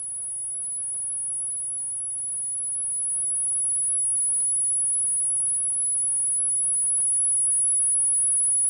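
High-pitched steady test tone from a signal generator played through a loudspeaker, growing gradually louder over the first few seconds and then holding, as the volume is turned up in a high-frequency hearing test.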